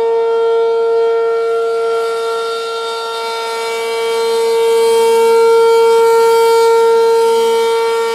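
ACA P-15 outdoor warning siren sounding its steady Alert tone: one held pitch with a rich set of overtones, loud throughout, its loudness slowly swelling and easing.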